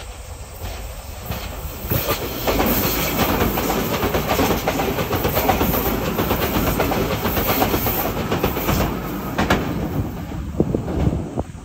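Meitetsu 2200 series electric train passing close by, a steady rumble of wheels on rail with a fast clatter over the rail joints. It swells about two seconds in and falls away near the end.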